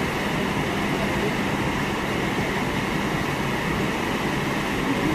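Steady rushing of churning water in the Carnival Dream cruise ship's wake, with a constant low hum from the ship underneath.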